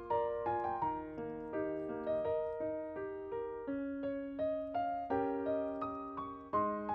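Background piano music: a gentle melody with chords, notes struck at a steady pace.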